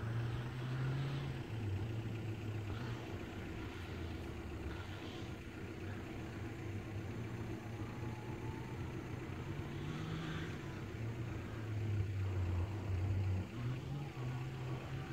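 Yamaha YXZ1000R side-by-side's three-cylinder engine running, a low steady drone whose pitch steps up and down as the driver changes speed.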